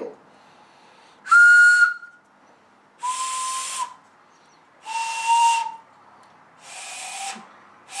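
Four short, breathy whistle notes blown one after another on the separate pipes of a homemade wooden train whistle made from a scrap 2x4, each pipe voiced by a sanded dowel plug. Each note is lower than the one before, and the last is quieter. The pipes are being tested one by one, and each gives a clear note, showing its plug is set right.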